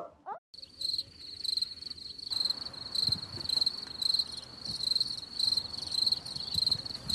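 Crickets chirping in a high, pulsing trill that swells about twice a second.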